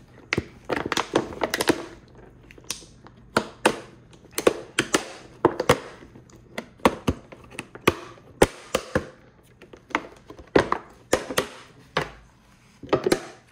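Close-up eating sounds: a quick, irregular run of sharp clicks and crunches of chewing and biting.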